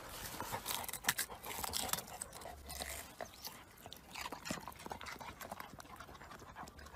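A dog biting and snuffling at a white radish in the soil: irregular crunching and scraping clicks, loudest about a second in, then quieter and sparser.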